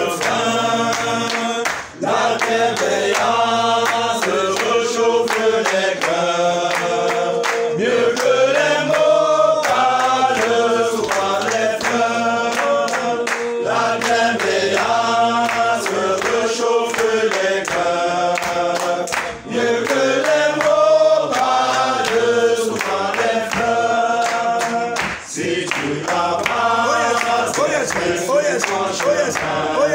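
A group of men singing a hymn together, unaccompanied, with a few short breaks for breath between lines.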